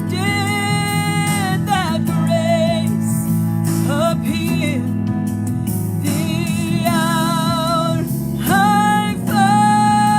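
Gospel worship song: a singer holding long notes, some with vibrato, over steady instrumental accompaniment.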